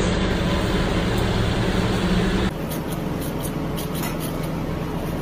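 Steady mechanical hum with a low tone running through it. It drops and changes character abruptly about two and a half seconds in, and faint light clicks follow.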